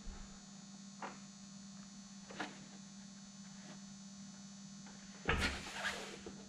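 Steady low electrical hum, with two faint ticks of fingers working a wire clip into the fabric-covered wing rib, then a short rustling thump about five seconds in as hands brush across the taut wing fabric.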